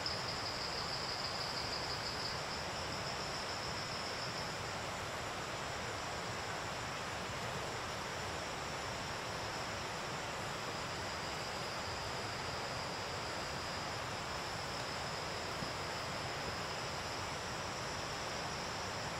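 Tropical forest ambience: a steady hiss of background noise with a high, pulsing insect trill that is loudest in the first couple of seconds, fades, and comes back fainter from about halfway through.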